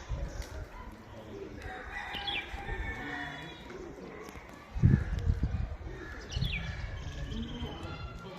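Birds chirping in short falling calls, with a loud low thud about five seconds in.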